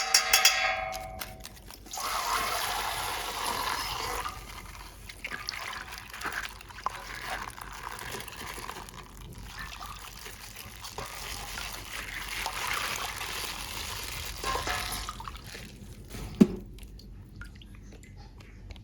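Water pouring and trickling out of a punctured plastic bag for about thirteen seconds, after a short pitched sound at the start. A sharp knock comes near the end.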